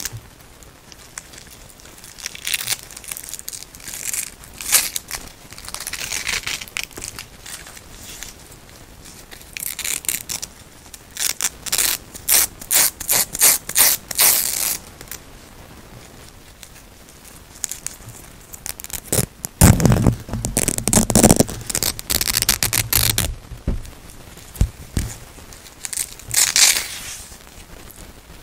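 White hook-and-loop (Velcro) straps being pulled apart and untangled by hand. They rip in short scratchy strokes that come in quick runs with pauses between. The loudest and deepest run comes about twenty seconds in.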